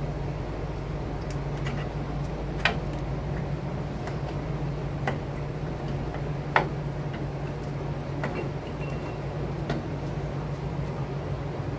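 Light clicks and clinks of steel drum-brake parts being handled as a rear wheel cylinder is worked off the backing plate, about five scattered taps with the loudest around the middle, over a steady low hum.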